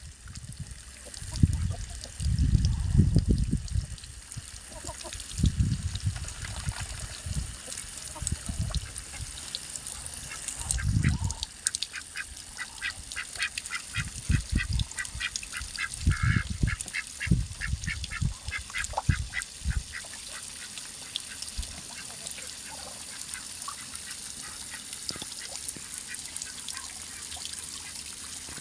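Ducks quacking, with a fast run of repeated quacks in the middle. Low thumps come and go during the first part.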